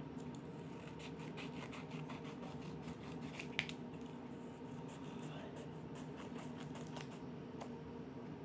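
Scissors trimming the edge of a cardboard piece: a string of faint, short snips over a steady low room hum, with one sharper click about three and a half seconds in.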